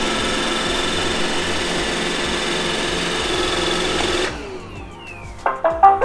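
iRobot Roomba e5 robot vacuum running, its vacuum motor and brushes giving a steady whir with a high whine, as it drives onto its charging dock. About four seconds in the motor cuts off and winds down, and near the end the robot plays a short docking chime of a few quick notes, the sign that it has docked.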